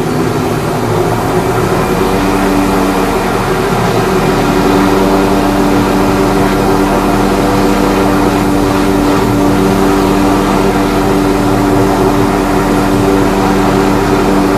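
Light turbine helicopter of the Hughes/MD 500 type running on the ground with its main and tail rotors turning, a steady drone of engine and rotor tones. It grows a little louder over the first few seconds, and a new steady tone comes in about four seconds in: the rotor is spinning up before takeoff.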